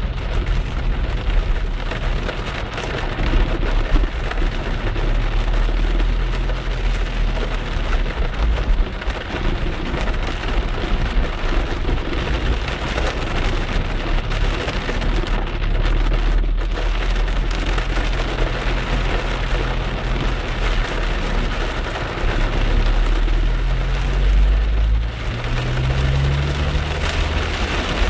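Heavy rain pattering on a moving car, heard from inside the cabin, over the low steady rumble of the engine and tyres on the wet road. The engine's pitch rises for a few seconds near the end.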